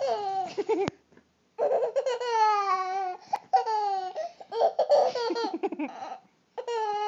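A baby laughing hard in several high-pitched bouts with short breaks between them.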